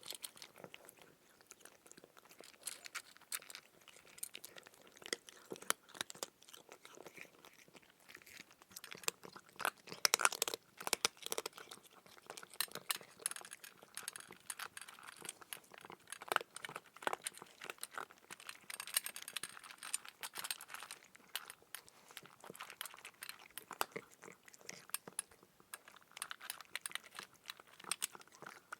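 Crunching and chewing of crisp food, a dense run of irregular crunches with a louder cluster about ten seconds in.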